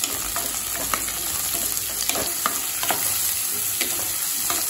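Sliced onions sizzling in hot oil in a kadai, freshly added to tempered fennel, cumin and curry leaves and stirred with a wooden spatula. The spatula scrapes and clicks against the pan now and then.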